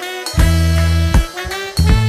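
Upbeat music with sustained bass notes and a steady drum beat.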